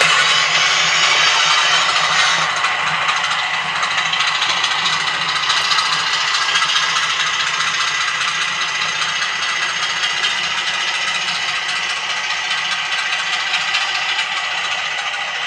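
A DCC sound-fitted 00 gauge model diesel locomotive, its sound chip playing a steady diesel engine note through the model's small speaker, with the wheels of the loco and its coaches rattling along the track. The sound eases slightly as the train moves away.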